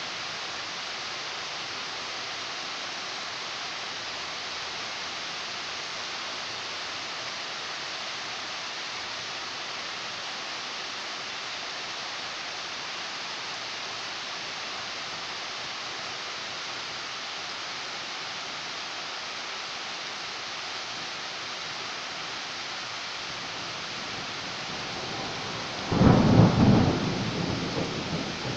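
Steady hiss of falling rain, then near the end a sudden loud thunderclap that breaks in sharply and rumbles on as it fades.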